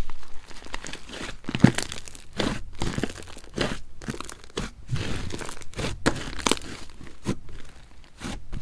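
Hands squishing, pressing and stretching slime, giving irregular crackling pops and clicks several times a second.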